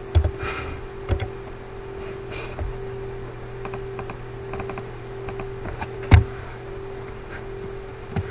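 Computer keyboard keystrokes as text is typed, coming as scattered clicks with one louder key press about six seconds in, over a steady low electrical hum.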